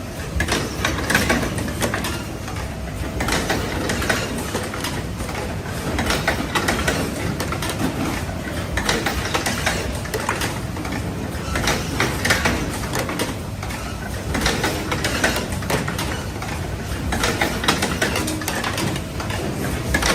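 Automatic four-spindle paper-tube cutting machine running: a steady motor hum under rapid, irregular clicking and clattering from the cutting and feeding mechanism.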